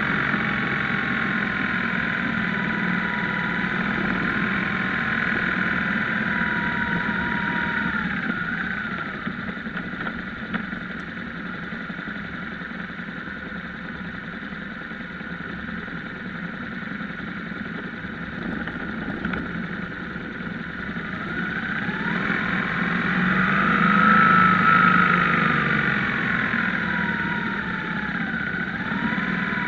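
BMW R1150GS air/oil-cooled boxer twin engine running on the road. Its pitch falls and the sound eases about eight seconds in, then rises and swells loudest a little over twenty seconds in before falling away again.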